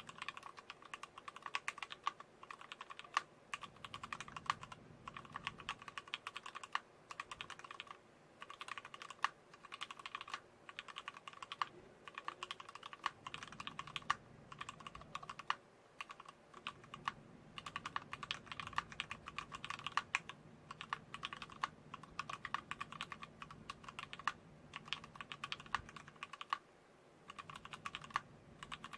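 Steady typing on a TX-1800 custom mechanical keyboard with a brass plate and lubricated vintage Wyse black linear switches on 62 g springs: a fast run of sharp key clacks, with a few short pauses between bursts.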